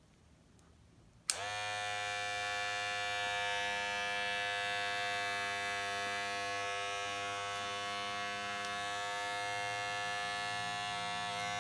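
Transparent WMark electric hair clipper switched on with a click about a second in, then running with a steady buzz of its blade motor.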